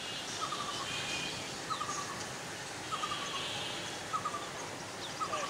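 Birds calling outdoors. One bird repeats a short call of a few quick falling notes about once every second, and other birds chirp higher, over a steady background hiss.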